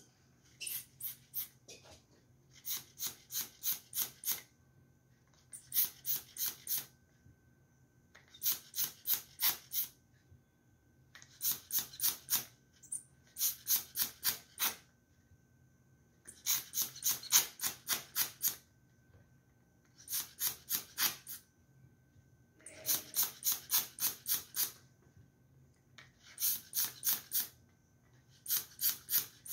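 Handheld pearl-dust sprayer squeezed in quick runs of short airy puffs, about three a second, each run lasting a second or two with brief pauses between, dusting edible pearl powder over a cake.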